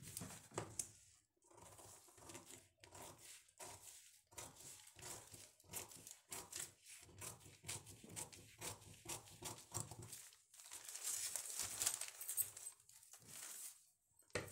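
Scissors snipping through newspaper along a drawn blouse pattern: a run of short, irregular cuts with the paper rustling. About ten seconds in the paper crinkles louder for a couple of seconds as the sheet is handled and turned.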